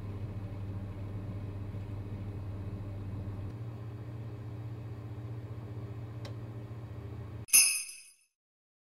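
Electric oven running with a steady low hum. The hum cuts off abruptly near the end, and a short, bright chime rings and fades within about half a second.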